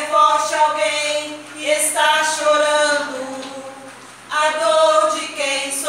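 A woman singing a slow song in long held notes, pausing briefly between phrases.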